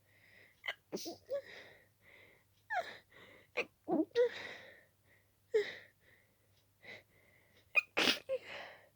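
A person in an itchy sneezing fit, sneezing rapidly again and again with quick gasping breaths in between. The sneezes sound wet and stuffy.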